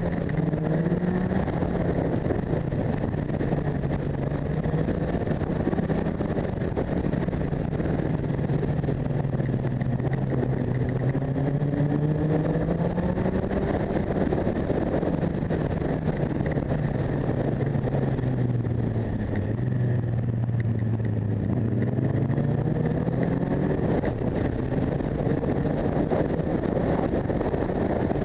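Motorcycle engine running under way, heard from the rider's own bike, its pitch slowly falling and rising with the throttle. A steady rush of wind runs beneath it.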